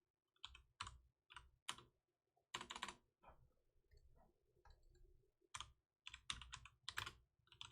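Trading cards being handled and shuffled: a string of irregular light clicks, taps and short rustles as cards are slid, stacked and flicked.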